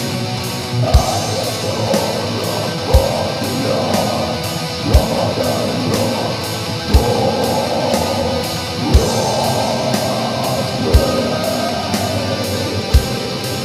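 Black metal music: distorted electric guitars played over a slow beat, with a deep hit about every two seconds.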